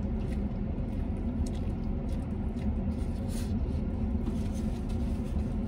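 Steady low rumble of an idling vehicle heard inside its cab, with a few faint chewing and mouth sounds of someone eating a burger.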